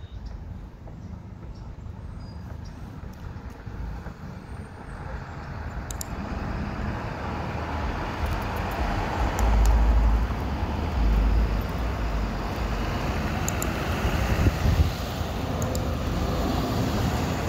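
Heavy road vehicle, truck-like, growing steadily louder as it comes near and staying loud, with heavy low rumbles about ten seconds in; noisy and loud.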